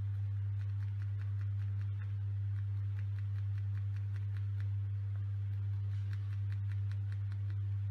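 A cloth rubbing compound over a clear-coated plastic model car body in quick strokes, several a second, heard as faint repeated swishes. Underneath is a loud steady low hum.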